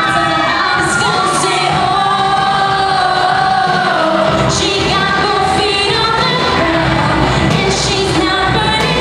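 A girl singing a pop song solo into a microphone over instrumental accompaniment, holding a long note a couple of seconds in.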